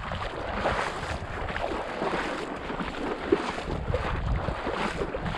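A person wading in waders through shallow marsh water and grass, legs sloshing and splashing in an uneven rhythm, with wind rumbling on the microphone.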